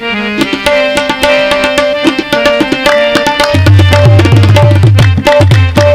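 Instrumental opening of a qawwali: harmonium playing a melody with held notes, with tabla strokes throughout. The deep strokes of the tabla's bass drum join about three and a half seconds in.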